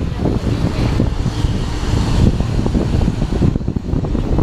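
Open-sided parking lot tram rolling along, its steady rumble mixed with wind buffeting the microphone.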